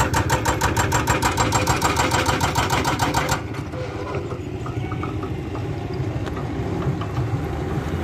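Hydraulic breaker on a demolition machine hammering the concrete of an old bridge in rapid, even blows, about seven a second, with the machine's diesel engine running underneath. The hammering stops a little over three seconds in and the engine keeps running.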